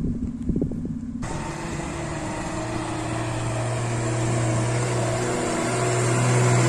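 An old bonneted truck loaded with hay drives toward the listener: a steady low engine hum over road and wind noise, growing louder as it nears. The sound starts abruptly about a second in.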